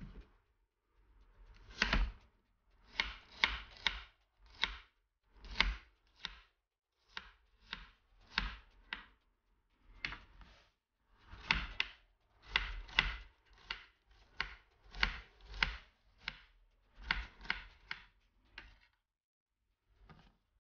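Chef's knife slicing garlic cloves on a plastic cutting board: short knocks of the blade on the board, in quick runs of two or three with brief pauses, stopping near the end.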